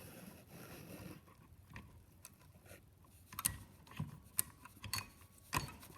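Handling noise as a metal aircraft voltage regulator is fitted back onto its test stand: light clicks, taps and short scrapes, with several sharp clicks in the second half.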